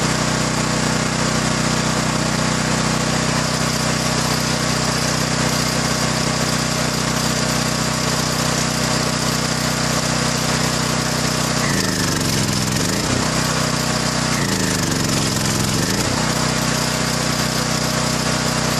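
Champion 7000/9000-watt dual-fuel portable generator running steadily on propane, its single-cylinder engine holding an even note. Twice, past the middle, a brief wavering sound with falling pitch is heard over it.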